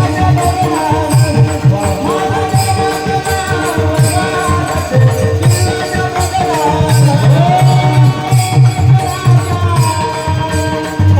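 Marathi devotional kirtan singing: a male voice holds long, gliding notes over a steady drone, with a steady drum beat and jingling small hand cymbals (taal) keeping the rhythm.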